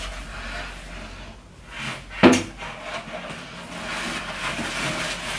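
Plastic packaging rustling and crinkling as it is unwrapped by hand, with one sharp knock about two seconds in and the rustling growing busier near the end.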